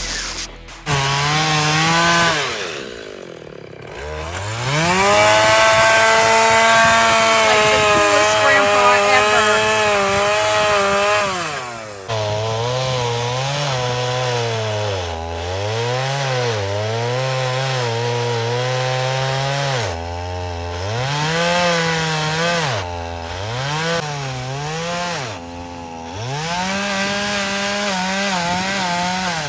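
Chainsaw cutting wood, its pitch sagging under load in the cut and climbing again as it frees up, over and over. It dips briefly about three seconds in, then runs high and steady for several seconds before a long stretch of repeated bogging and recovering.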